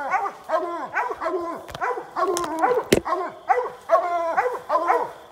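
Coonhounds barking treed at a raccoon, a steady run of barks about three a second. A sharp crack sounds about three seconds in.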